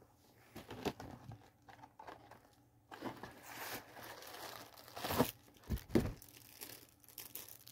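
Snack-cake packaging handled and opened by hand: crinkling and tearing, with a few sharper rips a little past halfway.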